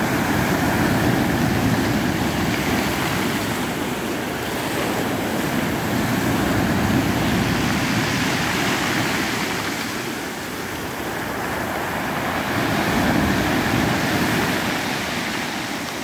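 Sea surf breaking on a pebble beach and around rocks, a continuous rushing wash. It swells and eases every five or six seconds as each wave comes in.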